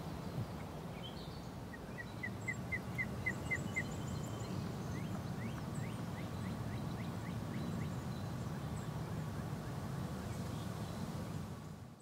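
Flowing river water with birds calling over it: a quick run of about nine short notes about two seconds in, then a slower series of rising chirps. The sound fades out at the end.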